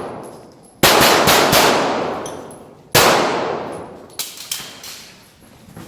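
CZ Shadow 2 pistol fired in quick strings during an IPSC stage: about four rapid shots a little under a second in, then another volley about three seconds in, each trailing off in a long echo. This is followed by three quieter sharp cracks about a second later.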